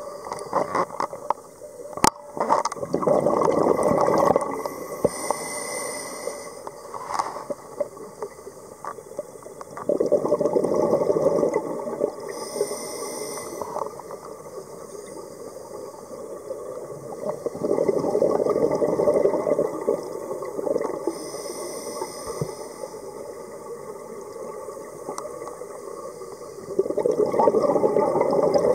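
Scuba diver breathing underwater through an open-circuit regulator. Four bursts of exhaled bubbles gurgle about every eight seconds, each followed by the shorter hiss of an inhalation. There is a single sharp click about two seconds in.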